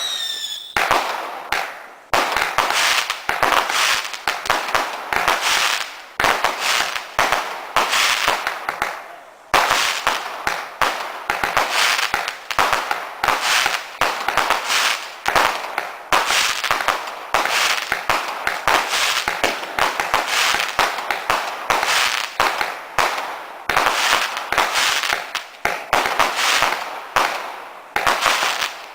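Garden fireworks going off in a rapid, near-continuous run of loud bangs and crackles, several a second, with brief lulls about 2 and 9 seconds in.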